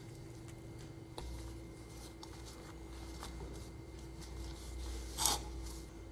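Hands spreading and smoothing large bottle gourd leaves on a plate: faint, scattered rustling and brushing of the leaves, with one louder rustle about five seconds in. A faint steady hum runs underneath.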